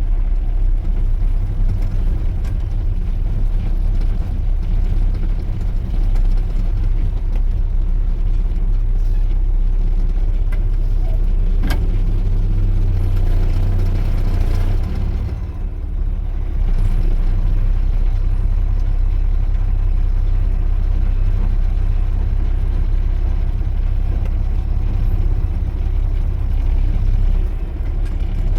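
Heavy diesel engine of a concrete pump truck running while driving, a steady low drone. The level dips briefly about halfway through.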